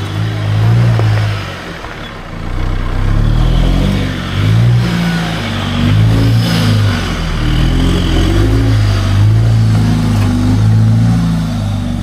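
Nissan Patrol 4WD ute's engine under load climbing a steep, rutted dirt hill, revving up and falling back again and again.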